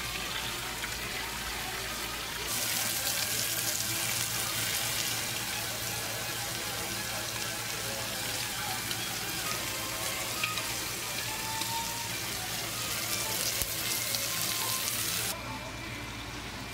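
Ribeye steak searing in a hot frying pan: a steady, dense sizzle of frying fat that drops to a quieter hiss near the end.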